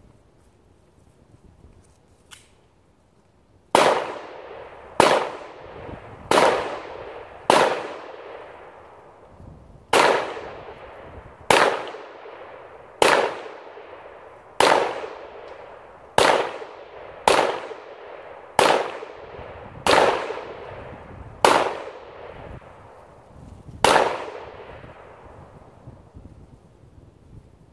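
Smith & Wesson SD9 9mm pistol firing fourteen single shots at an unhurried pace, roughly one every one to two seconds, each shot trailing off in a long echo. A faint click comes a second or so before the first shot.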